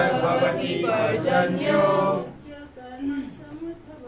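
A group of voices reciting a line of Sanskrit scripture in unison, call-and-response fashion; for the last second or two a single male voice is heard alone, leading the next line.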